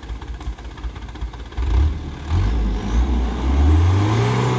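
Diesel engine of a sand dump truck revving under load as it pulls up a steep, loose gravel slope where it had failed to climb. The engine comes in about a second and a half in, then rises in pitch and grows louder near the end.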